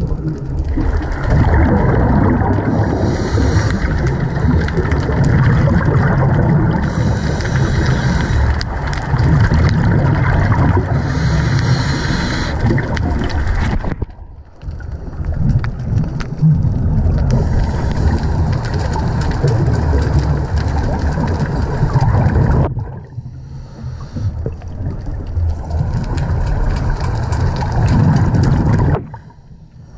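Muffled underwater rumble picked up by a camera in a waterproof housing, with a scuba diver's breathing through a regulator: hissing bursts of exhaled bubbles about every four seconds. The sound drops away briefly three times.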